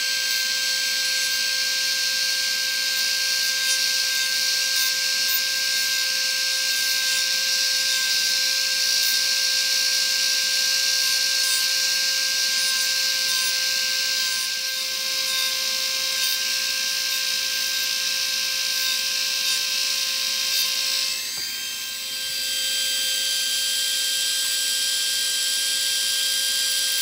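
Small rotary handpiece with a diamond cutting disc whining steadily as it grinds down a rabbit's overgrown incisors, trimming teeth grown out of line from malocclusion. A little past twenty seconds in it dips briefly, then runs on with a slightly changed tone.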